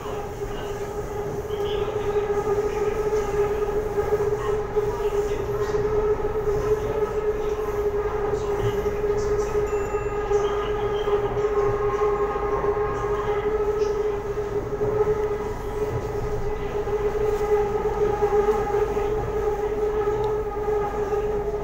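Bangkok BTS Skytrain running, heard from inside the carriage: a steady rumble of running noise with a constant whine and its overtones above it.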